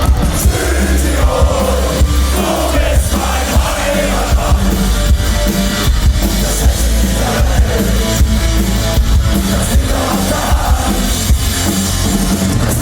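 Live rock band playing loudly: a driving drum kit with a heavy bass and a sung vocal line over it.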